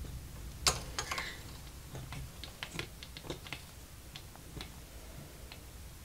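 Light, irregular clicks and ticks from soldering work on a small metal lure blade, the iron tip and solder wire touching the metal. The loudest click comes a little under a second in, and they thin out after about four seconds.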